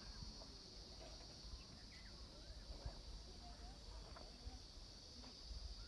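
Faint outdoor ambience: a steady high-pitched insect drone, with scattered short bird chirps and a low rumble of wind on the microphone.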